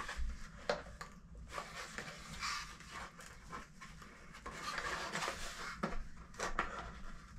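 Hands working open a small cardboard box: cardboard flaps rubbing and scraping, with scattered small clicks and taps.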